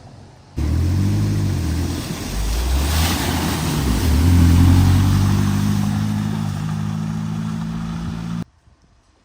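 A vehicle engine revving as it drives through floodwater, its pitch stepping up and down under a rush of splashing water that peaks about three seconds in. The sound starts suddenly and cuts off abruptly near the end.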